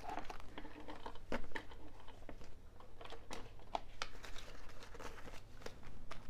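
Paper banknotes and a clear plastic zipper pouch in a cash binder crinkling and rustling as bills are handled and slid in, with scattered light clicks and taps.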